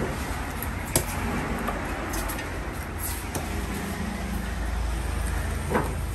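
Heavy curved knife knocking against a wooden chopping block as tuna is cut: one sharp, loud knock about a second in, a few lighter ticks, and another knock near the end, over a steady low rumble.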